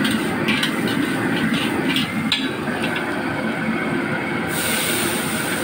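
Gas wok burner running steadily under a metal spatula scraping and clanking against the wok as crabs are stir-fried; the clanks stop about two and a half seconds in. A high hiss comes in suddenly near the end.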